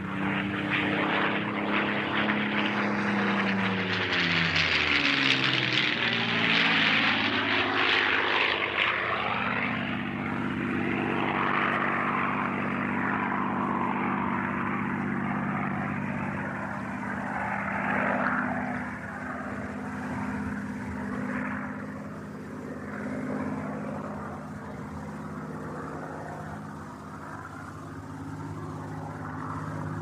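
Supermarine Spitfire's V12 piston engine and propeller flying past: the engine note drops in pitch as it goes by a few seconds in, when it is loudest, then settles into a steady drone that slowly fades.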